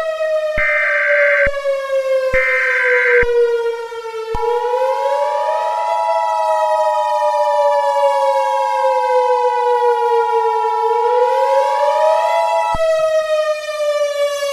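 Civil defense siren wailing in slow cycles, each rising quickly and falling more slowly, under Emergency Alert System tones. Early on come two short bursts of warbling SAME header data tones. Then the steady two-tone EAS attention signal sounds for about eight seconds and cuts off near the end.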